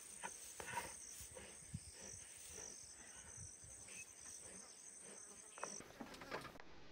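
Insects trilling steadily in the bush, a high-pitched drone that cuts off suddenly near the end, with faint scattered clicks and knocks.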